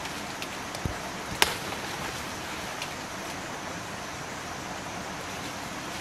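Steady rushing outdoor noise with no pitch to it, with a soft thump just under a second in and one sharp snap about a second and a half in.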